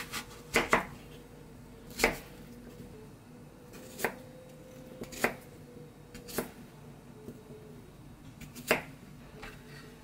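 Kitchen knife cutting a peeled persimmon into chunks on a wooden cutting board. The blade goes through the fruit and strikes the board about eight times, in irregularly spaced sharp knocks.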